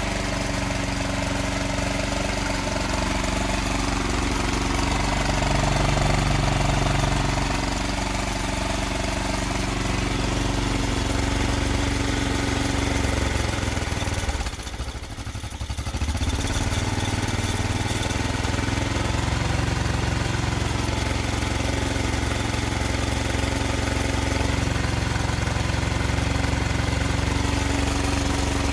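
Briggs & Stratton 5.5 hp single-cylinder engine with a GEET reactor running steadily, its speed shifting; about halfway through it drops off sharply for a second or so, then picks back up. It is being fed vinegar vapour from a bubbler, which the owner takes as running on vinegar.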